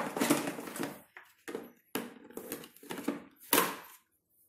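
Hard plastic tray being handled and slid onto a plastic booster seat: a run of clattering and scraping knocks, with a sharper clack about three and a half seconds in as it goes into place.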